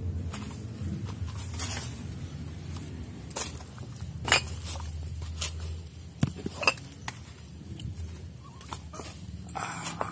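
Scattered clicks and light knocks with rustling from a person moving about on foot with a handheld camera, the sharpest knocks about four and six and a half seconds in, over a low rumble that fades about six seconds in.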